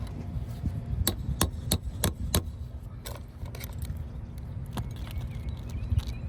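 A quick run of five sharp taps from a hand tool working loose a damaged asphalt shingle, followed by a few scattered taps, over a steady low rumble.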